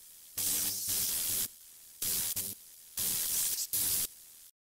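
Glitchy static sound effect: bursts of hiss with a faint low hum under them, switching on and off about four times and cutting off suddenly shortly before the end.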